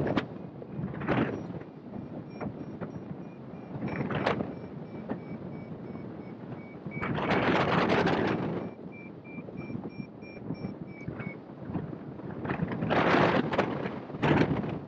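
Wind buffeting the microphone in repeated gusts, the biggest lasting about a second and a half in the middle, on a hang glider in flight. Through it, a flight variometer beeps in a steady string of short tones, the signal that the glider is climbing in lift, until the beeping stops about eleven seconds in.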